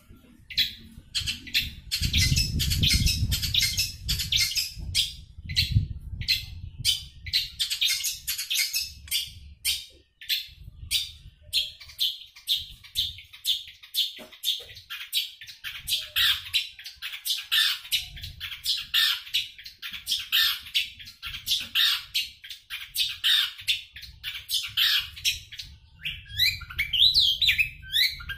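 Caged long-tailed shrike (cendet) singing at full tilt: a fast, continuous string of sharp, harsh repeated notes, several a second, in the mimicking "sapu jagat" style. The song breaks briefly about a third of the way in and turns to rising chirps near the end.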